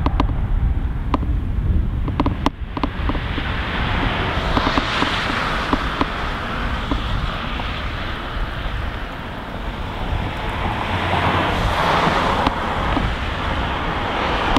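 Wind rumbling on the microphone outdoors, with a rushing noise that swells about five seconds in and again near the end. A few sharp clicks come in the first three seconds.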